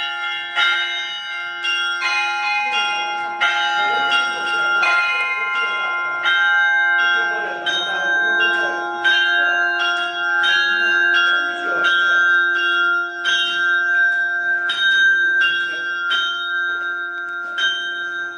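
Monastery church bells being rung: several bells of different pitches struck in a steady rhythm, a little more than one strike a second, with the hum of a low bell sustained underneath.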